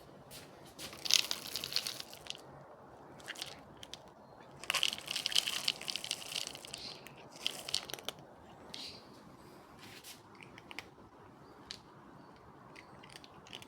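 Crunching in bursts of crisp clicks, loudest about a second in and again from about five to seven seconds in, with scattered single crunches between.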